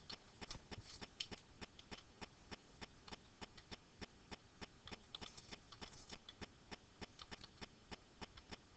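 Computer keyboard typing: a run of light, irregular key clicks, several a second.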